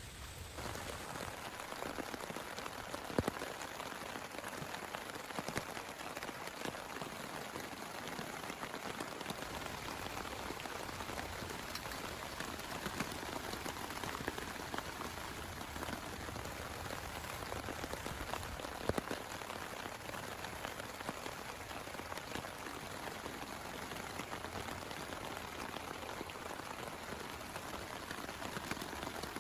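Steady heavy rain falling on a nearby surface, with many separate drop hits and two louder ones about three seconds and nineteen seconds in. The rain sound comes in abruptly about half a second in.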